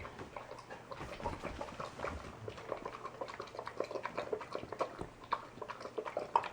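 Golden retriever eating from her bowl: a quick, irregular run of chewing, licking and smacking sounds.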